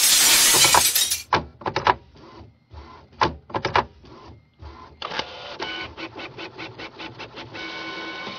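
Quick clicks of a smartphone's on-screen keyboard as a message is typed, in short irregular runs that grow denser in the second half. A loud rushing noise fills about the first second.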